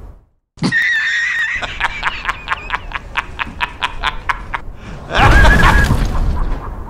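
A high-pitched, artificial-sounding cackle: a wavering squeal, then a rapid, rhythmic run of sharp laughing pulses about five a second. It ends in a loud, distorted burst about five seconds in.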